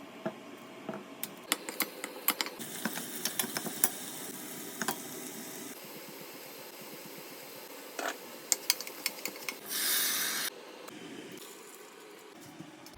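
Kitchen cooking sounds: a run of sharp clicks and taps from utensils and cookware, more of them about eight seconds in, and a short burst of hiss about ten seconds in.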